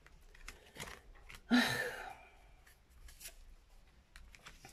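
Tarot cards being handled and laid down on a tabletop: scattered soft clicks and slides, with one louder swish lasting about half a second, a second and a half in.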